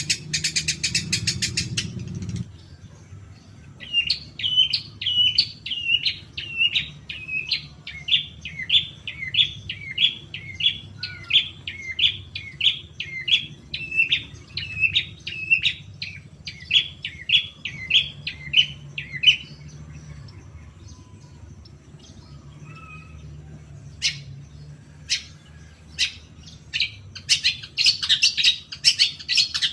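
Long-tailed shrike (cendet) giving a fast run of repeated sharp, hooked chirps, about three a second, for some fifteen seconds. This is a lure call meant to set a caged shrike singing. A few single sharp clicks follow, and dense chattering starts near the end, over a low steady hum.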